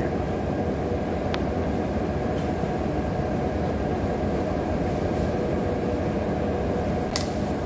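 Steady low rumbling background noise, with a couple of faint light clicks, one about a second and a half in and one near the end.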